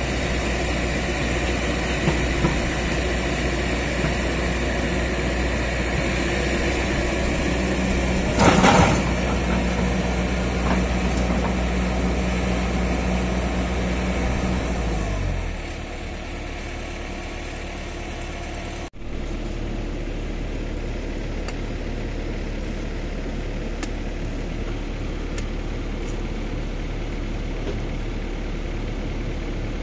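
Kobelco hydraulic excavator's diesel engine running while the boom works, with a short loud rush of noise about eight seconds in. The engine speed drops about fifteen seconds in. After a break, a steady low engine hum continues, with a few faint knocks.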